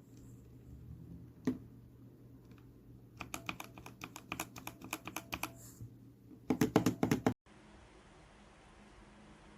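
Typing on a keyboard fitted with custom cat keycaps: a rapid run of key clicks for about three seconds, then a louder, denser burst that cuts off suddenly, after which only a faint steady hiss remains.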